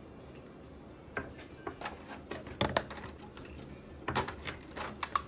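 Scattered light clicks and taps of cardboard packaging and plastic toothbrush parts being handled on a table, about ten in all, bunched in the middle and near the end.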